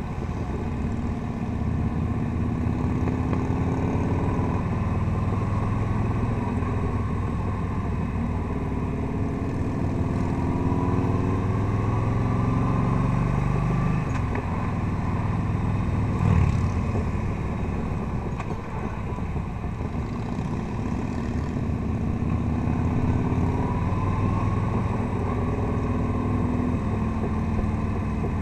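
Touring motorcycle engine running under way on a twisty road, its pitch rising and falling again and again as the rider works the throttle and gears through the bends, over a steady rush of road and wind noise. A single brief knock sounds about sixteen seconds in.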